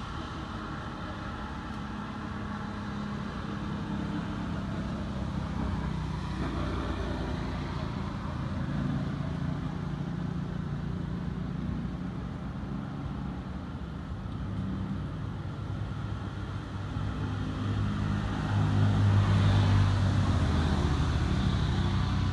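Motor vehicle engine running steadily, with a low even hum, growing louder about eighteen seconds in.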